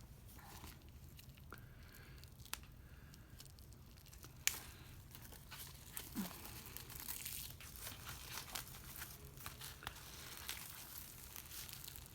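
Album packaging being torn open and crinkled by hand: a few separate sharp clicks at first, then dense crackling from about halfway through.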